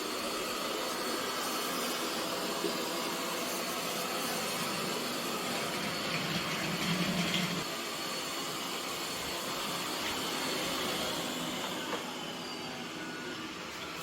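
eufy X10 Pro Omni robot vacuum cleaner running: a steady suction whir and hiss, with a brief lower hum about six to seven and a half seconds in.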